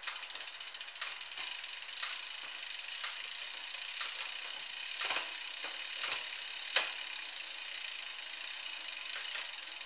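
Bicycle drivetrain running on a stand: the chain turns over a 10-speed 11-40 cassette as the Shimano Tiagra rear derailleur shifts up, one cog at a time, toward the 40-tooth low gear. A sharp click comes at each shift, about once a second, over a steady running noise, with the loudest click near the end of the shifting.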